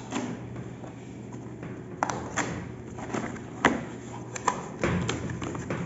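Cardboard laptop box being opened by hand: a series of sharp taps and knocks with some scraping as the lid flaps are pulled free and lifted, starting about two seconds in.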